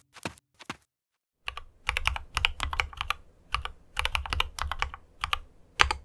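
Typing on a KEMOVE 61 SnowFox 60% mechanical keyboard with Gateron Red linear switches: a few keystrokes, a short pause, then a quick, steady run of keystrokes.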